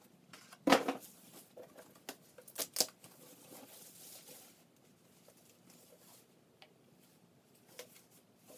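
Handling noise from unboxing: a sharp knock just under a second in, a couple of clicks near three seconds, and a stretch of soft rustling.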